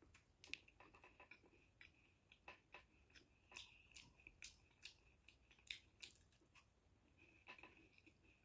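Faint biting and chewing of Mysore pak, a porous gram-flour and ghee sweet: irregular soft crunchy clicks and mouth sounds, several a second at times, over a faint steady high whine.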